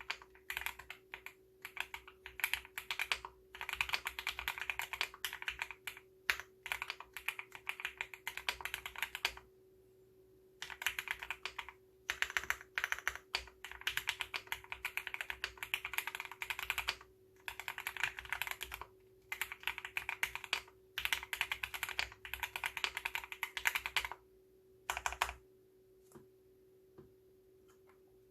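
Owlab Mr. Suit R3 mechanical keyboard with Gateron Cap Gold V2 switches being typed on in fast runs of keystrokes, with short pauses between runs; the typing stops a few seconds before the end.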